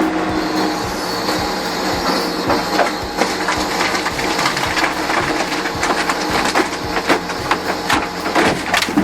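Log-splitting machine splitting a large beech log. A steady machine drone runs under many sharp cracks and crunches of the wood breaking apart, and the cracks grow more frequent in the second half.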